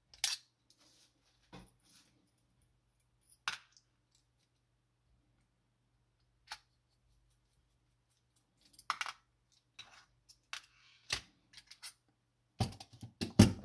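Scattered small metallic clicks and taps from a screwdriver and the metal plates of a Soviet marine clock movement being handled while the platform escapement is unscrewed and lifted off. There are about ten separate clicks spread out, then a quick run of louder knocks near the end.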